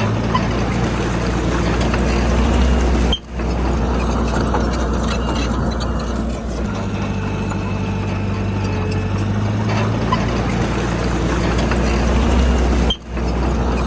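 Heavy diesel engine of earthmoving machinery running steadily under load, with a deep hum. The sound drops out for a split second about three seconds in and again near the end.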